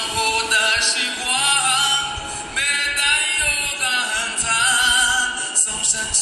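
A man singing through a handheld microphone: sung phrases with long held notes that waver in pitch, separated by short breaths.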